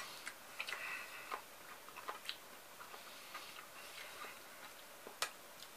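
Metal spoon clicking against an enamel pot while scooping sliced cucumber salad: irregular light clicks, the loudest about five seconds in, with soft chewing between.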